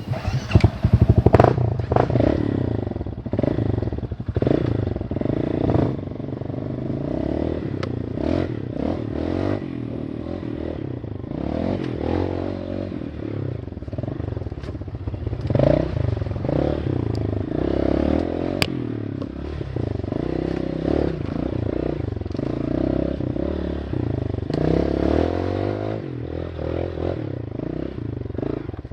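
Single-cylinder four-stroke trail bike engine running off-road, its revs rising and falling, with scattered clattering knocks.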